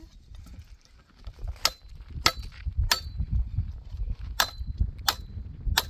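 Pickaxe head striking hard, stony soil: six sharp, separate strikes with a brief metallic ring, starting about a second and a half in and coming roughly every half second to second and a half.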